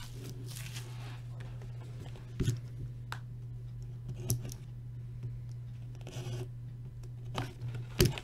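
Trading card hobby box being opened and handled: scattered scratches, taps and clicks of cardboard and wrapper, with a brief rustle about six seconds in, over a steady low electrical hum.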